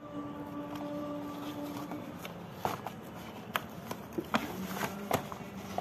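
Paper gift bag rustling and crinkling as it is handled and opened by hand, with several sharp crackles from about halfway through. A faint steady hum sounds under it for the first two seconds.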